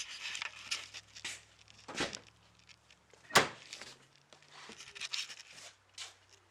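Rustling and handling noises with scattered clicks as someone moves into a car's cabin, with one sharp knock about three and a half seconds in.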